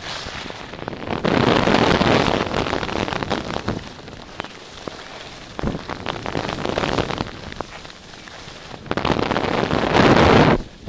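Skis scraping and hissing over packed snow through turns, the noise swelling three times as the edges bite.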